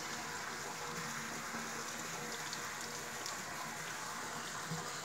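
Steady hiss of water, with a faint low hum underneath.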